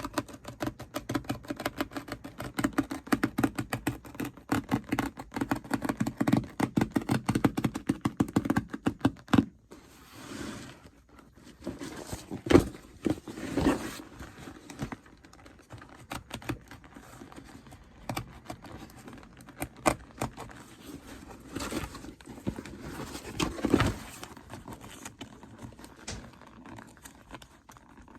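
Hand work on a leather bag at the bench: a rapid run of small clicks and scratches for about nine seconds, then quieter handling with a few separate sharp knocks.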